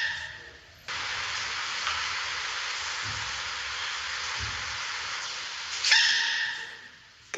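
Baby giant panda sneezing: one sudden, squeaky burst about six seconds in that fades within about a second, over a steady hiss.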